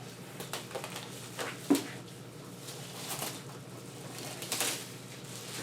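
Faint rustling and a few light taps and scrapes as a boxed Blu-ray collector's set is handled and opened.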